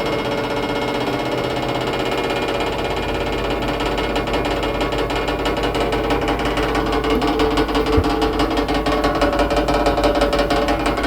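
Hotel laundry-room washing machine in its final spin, running loud with a fast rattling vibration that builds and grows louder about three seconds in, and one sharp knock near the middle. It is an unusual noise that the owner thinks comes from the bottom of the machine.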